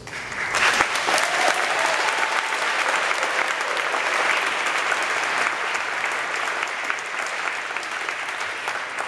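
Audience applauding, dense clapping that sets in about half a second in and eases slightly toward the end.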